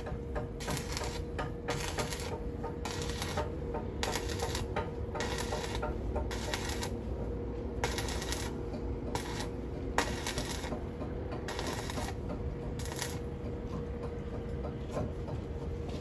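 Electric arc welding on a boat's exhaust pipe: the arc crackles in short bursts of about half a second, roughly one a second, thinning out near the end. A steady hum runs underneath.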